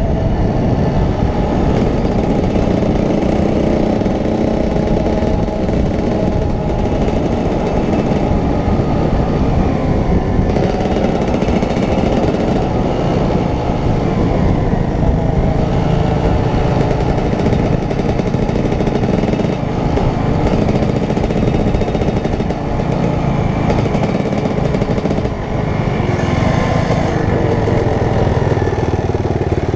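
Dirt bike engine running steadily under way on the road, heard from the rider's seat, its pitch shifting a little with the throttle now and then.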